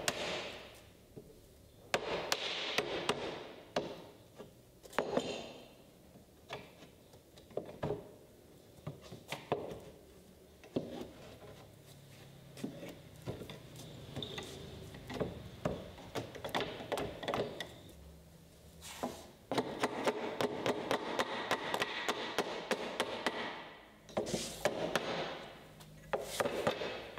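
A wood chisel worked by hand into a failed glue joint to pry a batten off a wooden bed rail: scattered knocks and creaks of wood, with a stretch of rapid ticking about two-thirds of the way through.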